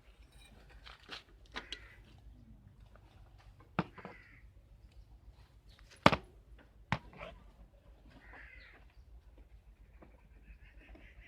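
Sharp, scattered clicks and knocks of tools and parts being handled while a new pedal is fitted to a bicycle crank. There are about half a dozen, and the loudest comes about six seconds in.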